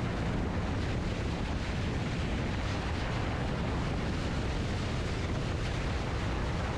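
Steady, heavy wind buffeting the action camera's microphone, a dense rushing noise with no clear engine note.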